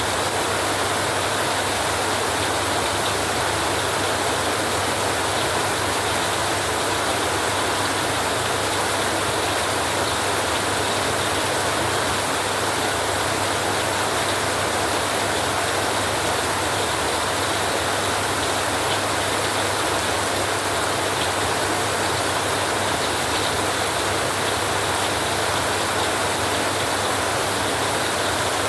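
Heavy rain falling steadily on a metal roof, an even, constant hiss with no breaks or distinct hits.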